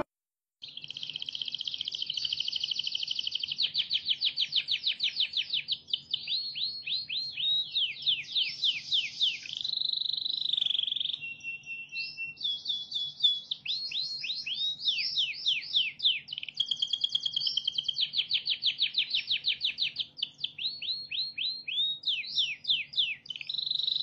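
Domestic canary singing one long, unbroken song of fast trills of repeated notes, rolling falling sweeps and short held whistles.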